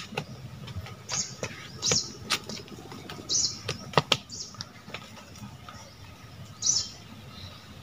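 Footsteps and rustling in dry fallen leaves as sticks of firewood are picked up off the ground, with a couple of sharp twig snaps. A bird chirps briefly about four times.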